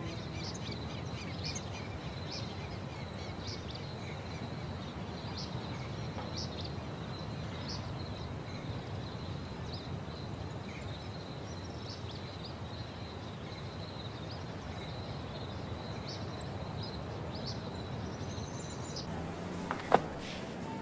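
Quiet ambience: a steady hiss of background noise with faint short chirps about once a second, and a single sharp click near the end.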